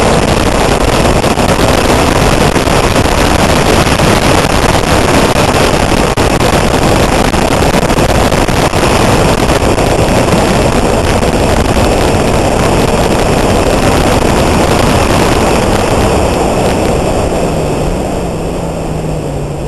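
Honda Civic rally car driven hard on a gravel track, its engine mixed with heavy wind buffeting on a roof-mounted camera. Near the end the noise eases and a steady engine note comes through.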